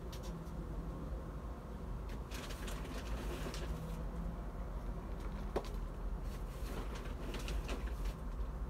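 Crinkling and rustling of a paper compost sack and a thin plastic cup as compost is scooped into the cup by hand, with one sharp click about halfway through, over a steady low rumble.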